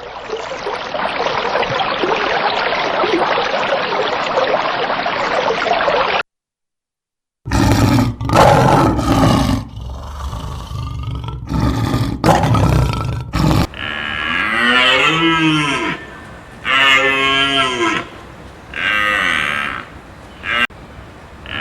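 Cattle mooing: a run of drawn-out, rising-then-falling calls about two seconds apart in the last third. Before them come loud, rough, unpitched sounds, and before that a steady dense noise that stops abruptly about six seconds in, followed by a second of silence.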